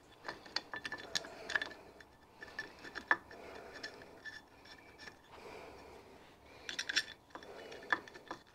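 Light metallic clinks and taps, in a few short clusters, as a small cast brass catch tank is handled and fitted against a steam engine's cylinder drain fittings.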